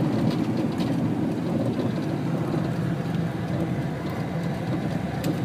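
Steady road and engine noise heard inside the cabin of a moving car, an even low rumble.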